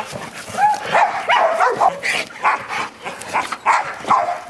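Rottweiler giving a rapid series of short barks and yelps, some bending up and down in pitch, excited during play.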